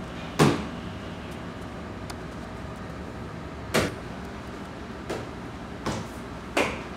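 Dull knocks of bodies and bare feet bumping against a wooden floor and wooden cupboard doors: five scattered knocks, the first, about half a second in, the loudest, over a steady room hum.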